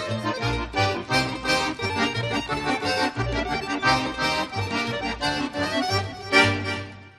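Cheerful accordion tune over a steady bass beat, fading out near the end.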